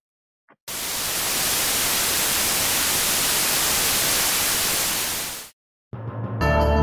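Television static: a steady white-noise hiss that starts just under a second in and cuts off abruptly about five seconds later, used as a broadcast-interruption sound effect.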